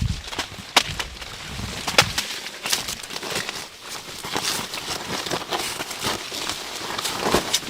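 Irregular crackling and rustling with sharp snaps and clicks scattered through, like dry material being handled.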